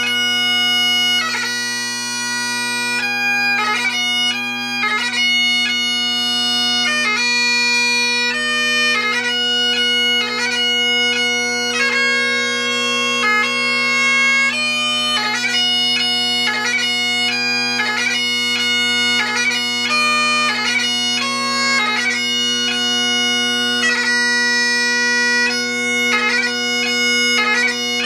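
Great Highland bagpipe playing a slow piobaireachd: a chanter melody moving from note to note, broken by quick grace notes, over the unbroken steady hum of the bass and tenor drones.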